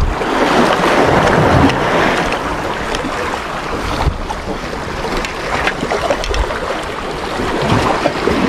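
Small waves washing against rocks, with wind buffeting the microphone and a few light clicks and knocks.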